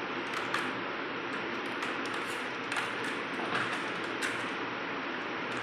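A small plastic box is batted about by a cat's paw, making a string of light taps and clicks against a painted masonry windowsill at uneven intervals. A steady hiss runs underneath.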